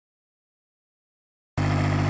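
Dead silence, then about one and a half seconds in a steady motor hum starts abruptly: an electric air pump running to inflate an inflatable boat.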